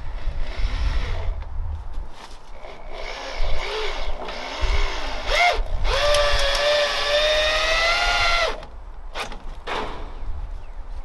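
Cordless drill running: a brief spin about five seconds in, then a steady whine for about two and a half seconds as it drives a screw into wooden framing. A couple of sharp knocks follow.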